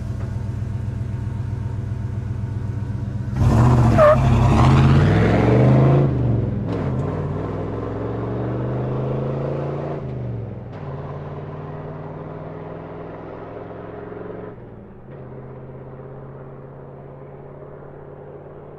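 Pickup truck engine idling, then about three and a half seconds in it pulls away fast, revving hard and climbing in pitch with several gear changes. It grows steadily fainter as the truck drives off.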